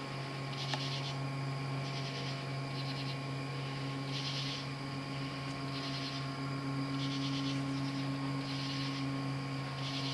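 Insects calling outdoors in short, buzzy, high-pitched bursts, roughly one a second, over a steady low electrical hum.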